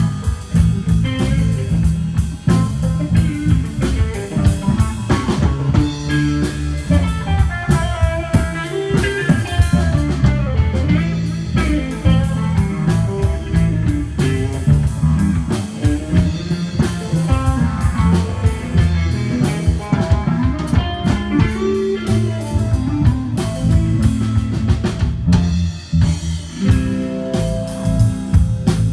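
Live blues power trio playing a slow blues: electric guitar lines over bass and a drum kit, with a steady beat throughout.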